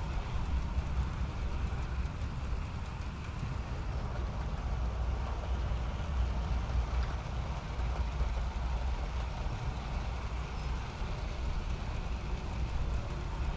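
Steady rumble and hiss of a model train running along the track, with no distinct clicks or changes.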